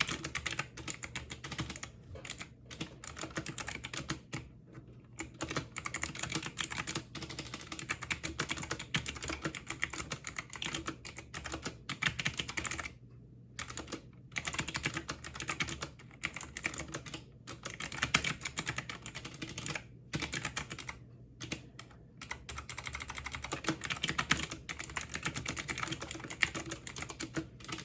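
Fast typing on a SteelSeries Apex 5 mechanical keyboard with clicky hybrid blue switches: a dense stream of key clicks, broken a few times by brief pauses.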